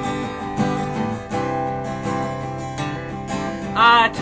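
Acoustic guitar strummed in a steady accompaniment. Near the end a wavering vocal note briefly comes in over it.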